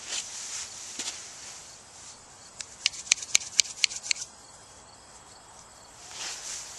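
Clothing and a foam mat rustling as a person shifts into position on the ground. About three seconds in comes a quick run of about ten sharp, ringing clicks, the loudest sound, whose source is unclear.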